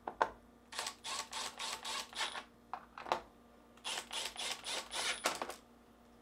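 Milwaukee M12 Fuel cordless driver with a T15 Torx bit driving the two screws of a refrigerator's center mullion hinge. It runs in two stretches of short, stuttering bursts with a high motor whine, the second starting about three seconds after the first.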